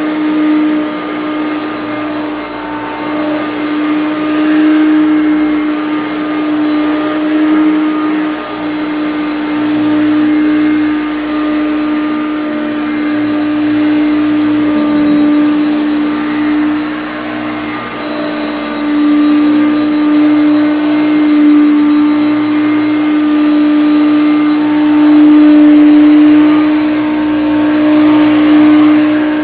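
Hoover Concept One upright vacuum cleaner running steadily on carpet with its self-propelled drive off, its motor's hum holding a steady pitch while the loudness rises and falls as it is pushed back and forth.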